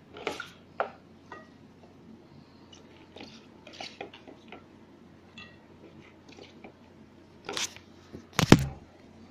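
Chopped vegetables (squash, long beans, okra) rustling and crunching in a plastic bowl as a hand mixes them, in scattered short sounds. Near the end come two louder knocks, the second the loudest.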